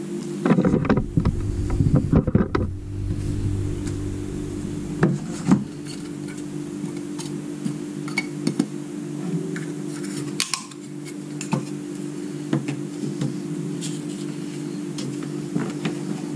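Clearing a craft table: a hand sweeping dried resin flakes across a silicone mat, then the mat being peeled up and folded. Rustling and scraping fill the first few seconds, followed by scattered light knocks and clicks, two louder ones about five seconds in, over a steady low hum.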